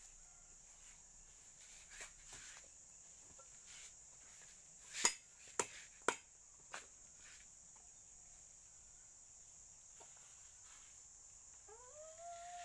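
Steady high-pitched chirring of insects, with a few sharp snaps about five to six seconds in as sugar cane is peeled by hand, and a short voiced call that rises and falls near the end.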